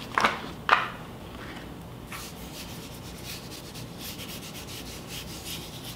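A hand rubbing and sweeping over a self-adhesive plastic laminating sheet laid on a paper page, in repeated short scratchy strokes, pressing the air out so the sheet seals. It opens with two sharp rustles of the sheet being handled, about half a second apart.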